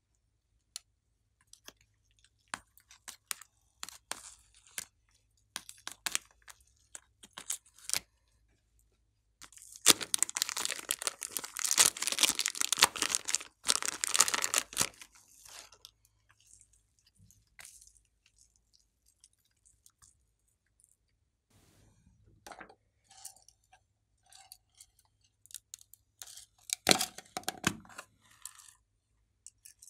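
Thin plastic bags crinkling and tearing as soft plastic clay is peeled out of them by hand, with scattered clicks and taps of handling; the densest crinkling lasts about five seconds in the middle.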